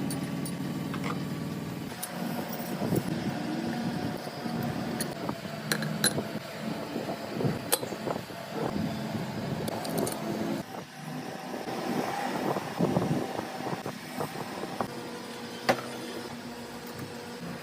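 Irregular metal clinks and knocks over an uneven mechanical clatter, with a few sharp strikes standing out.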